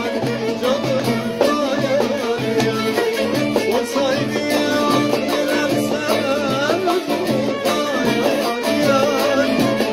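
Bağlama (long-necked Turkish saz) played with fast plectrum strokes in a Turkish folk tune, with a man's voice singing along over it.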